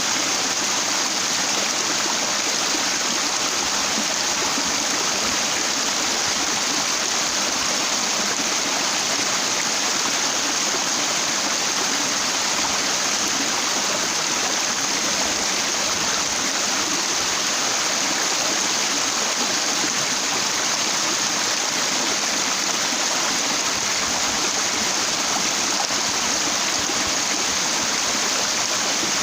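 Stream water running over a broad flat rock: a steady, unbroken rush of flowing water.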